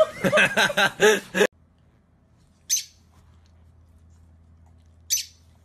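Laughter that cuts off abruptly about a second and a half in. Then a rosy-faced lovebird gives two short, shrill chirps a couple of seconds apart.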